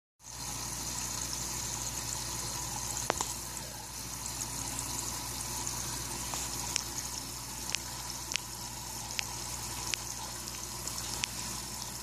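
Water running steadily in an aquaponics system, heard as a hissing trickle over a low steady hum, with several short sharp ticks scattered through it.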